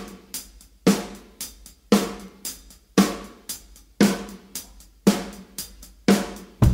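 Background music: a drum-kit groove playing on its own, a heavy hit about once a second with lighter hi-hat and snare strokes in between.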